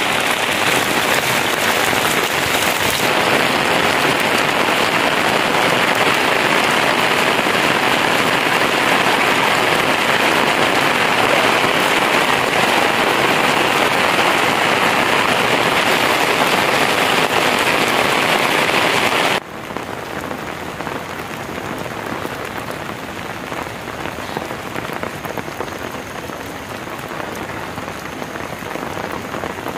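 Steady rain falling, a dense even hiss of drops on wet ground. About two-thirds of the way through it drops suddenly to a softer rain, and a faint high steady tone comes in near the end.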